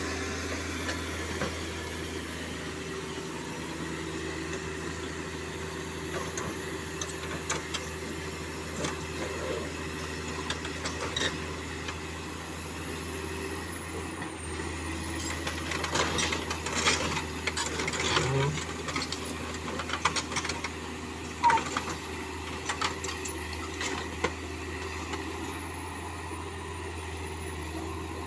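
Excavator diesel engine running steadily, with scattered sharp knocks and clatter through the middle of the stretch, from the breaker and the rock.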